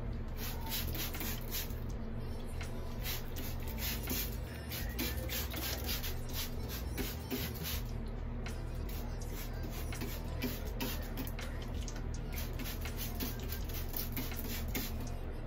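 Fingers working through damp curly hair close to the microphone, a run of short scratchy rustles over a steady low electrical hum.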